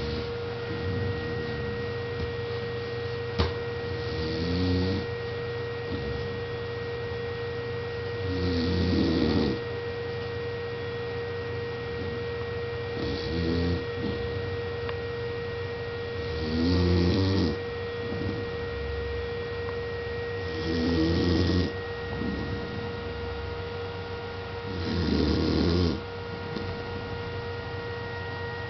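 A sleeping pet snoring, six long snores spaced about four seconds apart, over a steady hum.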